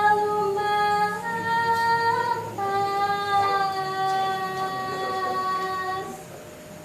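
A woman's voice singing three long held notes. The second is a little higher and bends up at its end; the last is held for about three and a half seconds and sinks slightly before it stops.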